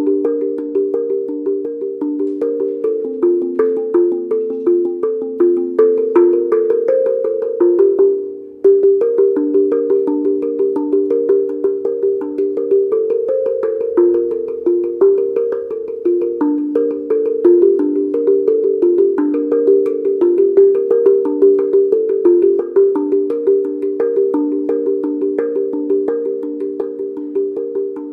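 Handpan played with the hands: a quick, steady stream of struck, ringing steel notes in a low-middle register. A brief break comes about eight seconds in.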